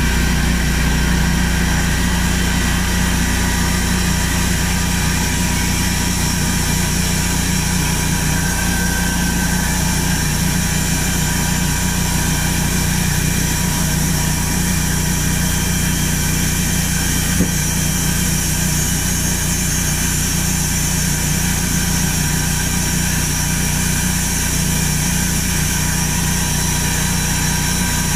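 Large band sawmill running steadily, its drive and band blade making a constant hum with a high whine above it. There is one brief click about 17 seconds in.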